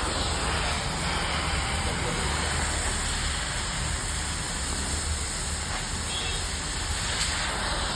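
Gas cutting torch hissing steadily while it cuts, with a low rumble underneath.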